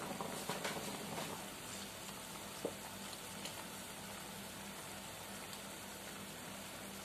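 Chicken adobo sauce of soy sauce and vinegar simmering in a frying pan: a steady bubbling sizzle with a few sharp pops in the first second and one more a little later.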